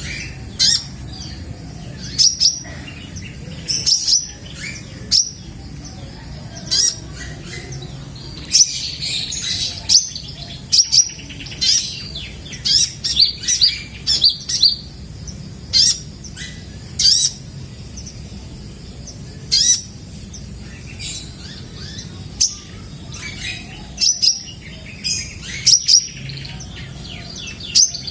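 Kolibri ninja dada merah (red-breasted sunbird) singing: short, sharp, high chirps in irregular bursts, coming thickest about a third of the way in. A steady low hum runs underneath.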